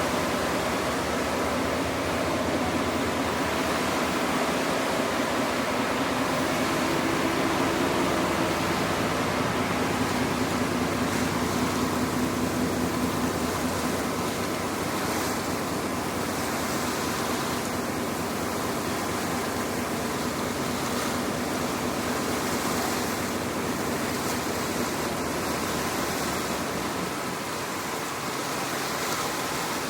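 Steady rushing of harbour water along a ferry's hull over the low, even hum of its engine.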